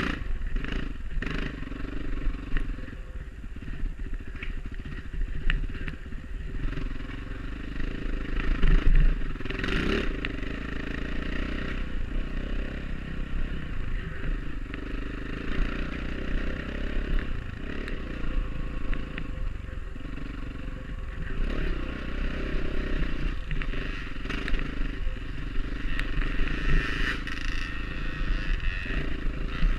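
Dirt bike engine running on a trail ride, its pitch rising and falling with the throttle, with rattling and scraping from the ride. There is a louder surge about nine seconds in.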